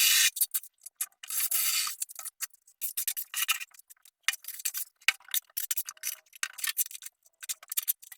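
Choppy, irregular bursts of scraping and quick clicks from hand work during a bathroom tiling job.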